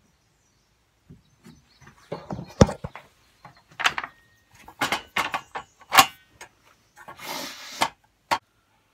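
Wide pine board being handled on a table saw's top and against its rip fence, giving a string of irregular knocks and clunks. A short sliding scrape comes about seven seconds in, followed by one last sharp knock.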